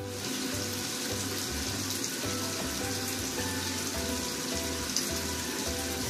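Steady hiss of running water in a bathroom, with background music over it: short repeated notes and a pulsing bass line.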